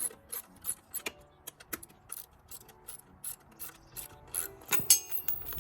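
Ratchet wrench clicking in a steady rhythm, about three clicks a second, as a fastener is turned on a 1973 Honda 450 motorcycle, with a louder knock shortly before the clicking stops.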